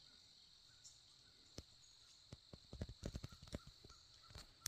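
Faint, irregular knocks and clicks, bunched together about three seconds in, over a steady high hiss in near silence.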